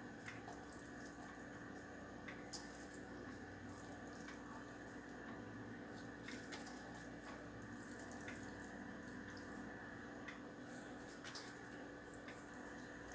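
Faint steady hum with scattered small soft clicks and rustles as grated carrot and zucchini are picked up and spread by hand over batter in a glass baking dish.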